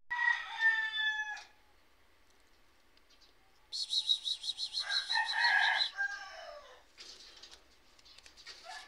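A rooster crowing twice, once at the start and again around the middle, the second call sliding down at its end. Over the start of the second crow comes a fast run of high chirps, about ten a second.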